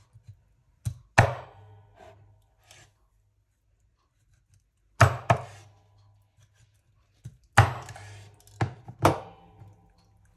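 Kitchen utensils and dishes knocking and clinking on a work surface: about ten irregular sharp knocks in pairs and small groups, each with a brief ring.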